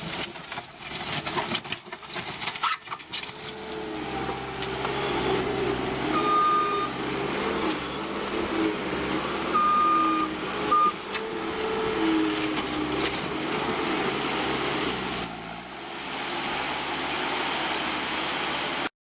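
New Holland L230 skid steer loader's diesel engine running under changing load, rising and falling in pitch, with clattering knocks in the first few seconds. Short high beeps sound once about six seconds in and again around ten seconds. The sound cuts off abruptly near the end.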